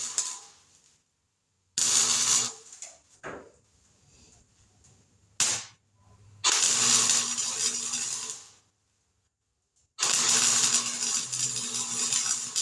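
Welding arc crackling on sheet-metal patch panels in stop-start bursts: a short tack about two seconds in, a brief crack near the middle, then two longer runs of about two seconds each, with quiet between them.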